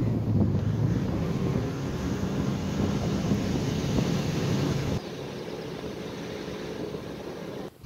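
A vehicle's engine hums steadily, mixed with road noise, as it drives on a gravel road. About five seconds in the engine sound drops away, leaving quieter road noise.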